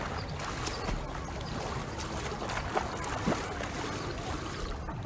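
Open-air swimming pool ambience: a steady wash of moving water, with a few small splashes.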